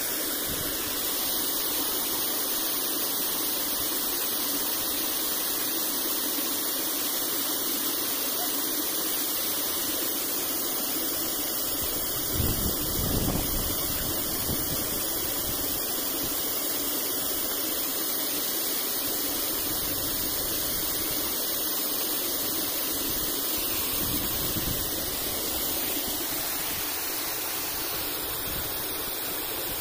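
Stream water rushing over rocks in a small cascade, a steady hiss. A short low burst about twelve seconds in.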